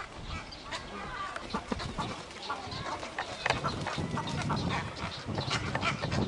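Cattle egrets calling in a breeding colony: a dense, overlapping chatter of short, harsh clucking calls from many birds. A low rumble builds under the calls in the second half.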